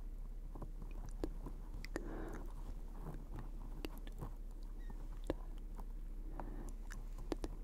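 Close-miked ASMR mouth sounds: scattered soft, wet clicks and smacks, with a brief breathy unintelligible whisper about two seconds in and again near the end.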